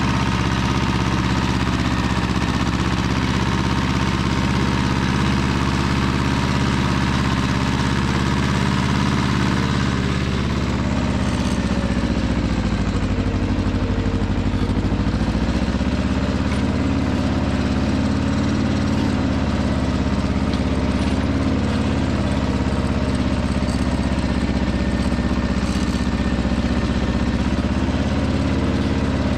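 Small two-cylinder Pasquali 425 tractor engine running steadily. Its note changes about ten seconds in and sags briefly before picking back up.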